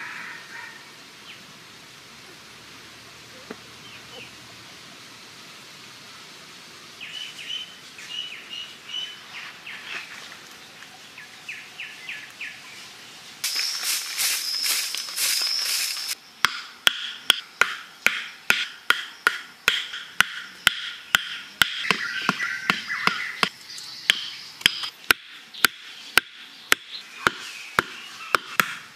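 Birds chirping in the forest, then a steady run of sharp knocks, about two a second, as short wooden stakes are hammered one by one into the ground, with high bird calls going on behind. Before the knocking starts there are a few seconds of a louder, steady high-pitched sound.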